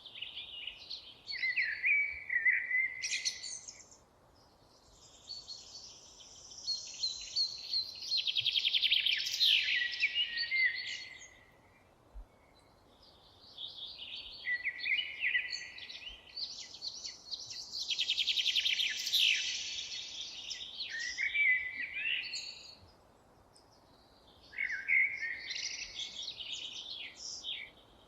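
Songbirds singing in high, chirping and trilling phrases several seconds long, with short quiet gaps between them.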